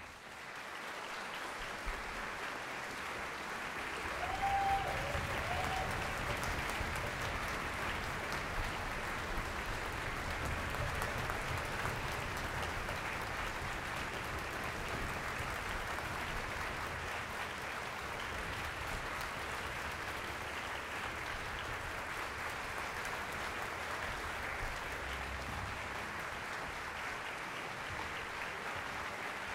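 A concert audience applauding steadily, starting right after the silence at the end of an orchestral piece. One short call from the crowd rises above the clapping about four seconds in.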